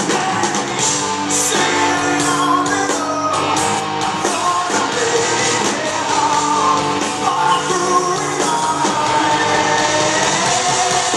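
Live rock band playing: a male lead singer sings into a microphone over electric guitars, bass and drums.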